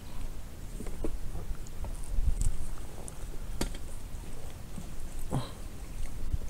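Low wind rumble on the microphone, with a few scattered light knocks and clicks from handling in a small fishing boat.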